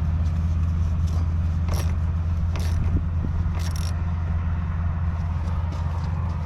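Wrench tightening the nut on a car battery's negative terminal clamp: a few short metallic clicks and scrapes about two, two and a half, and three and a half seconds in, over a steady low rumble.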